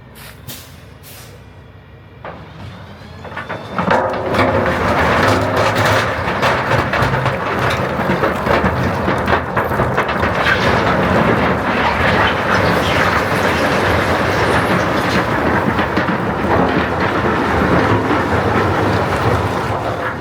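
Heavy equipment engine running under a dense, continuous rattle of loose gabion stone, building over the first few seconds and then holding steady.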